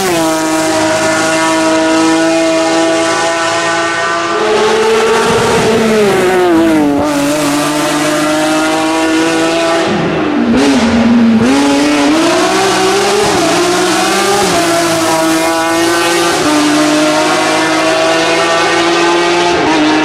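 BMW E36 M3 hillclimb car's S54 straight-six at high revs, with a sharp drop in pitch as it passes at the start. The revs fall about five seconds in, then climb again in steps, with quick upshifts about two-thirds of the way through.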